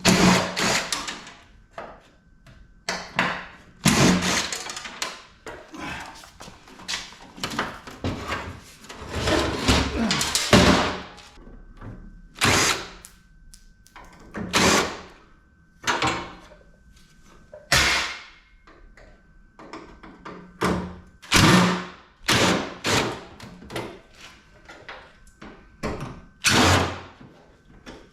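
Power drill/driver running in short bursts, one every second or two, backing screws out of a PTAC air conditioner's sheet-metal housing, with knocks of metal parts in between.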